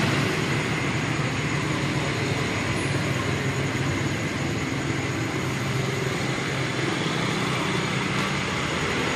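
Steady background hum with a faint high tone running through it.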